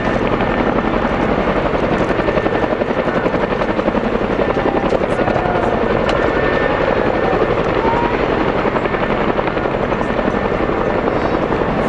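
Helicopter flying, its rotor blades beating in a fast, even chop that holds steady and loud throughout.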